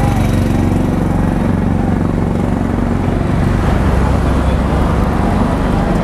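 Motorcycle engine running steadily, with a dense, even low drone.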